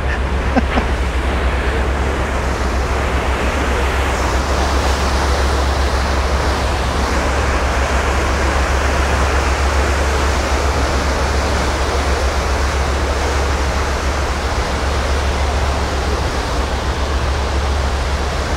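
Car ferry's propeller wash churning and rushing behind the stern as the ship pulls away from the dock, a steady loud wash of water over a low rumble. The hiss turns brighter about four seconds in.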